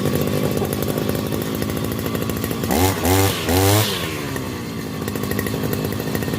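Kavi 541 two-stroke brush cutter engine idling just after a pull start. About three seconds in it is revved in a few quick throttle blips, then it settles back to idle.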